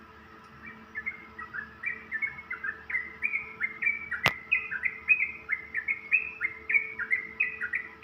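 Yellow-vented bulbul (trucukan) singing a fast, continuous run of short chirping notes that sets in under a second in and carries on, several notes a second. A single sharp click about four seconds in. A faint steady hum sits underneath.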